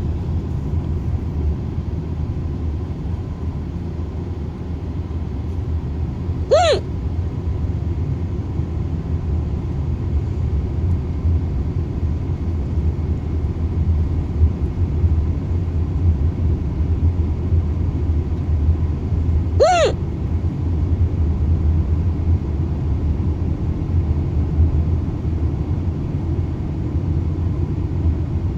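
Steady low road rumble inside a moving car, with a woman hiccupping twice, about 13 seconds apart: each a single short 'hic' that rises and falls in pitch. The hiccups set in after her wisdom teeth were removed.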